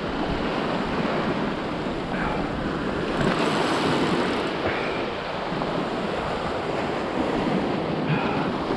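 Surf breaking and washing over a rocky shore ledge, a steady rush of water, with wind buffeting the microphone.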